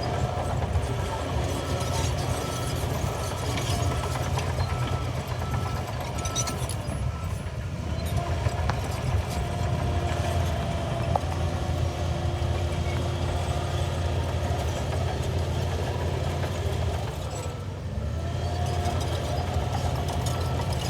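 Shantui DH17C3 LGP bulldozer's diesel engine running steadily under load, with faint whining tones above the engine note. The level dips briefly near the end, then picks up again.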